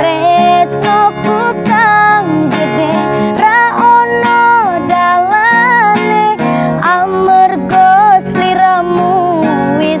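A woman singing a Javanese song over a strummed acoustic guitar, her voice in long held notes that bend and waver between syllables.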